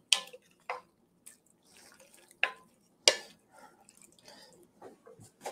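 Wooden spoon stirring thick, chunky tomato and black bean chili in an enameled pot: wet squelching and scraping, with several sharp clacks of the spoon against the pot.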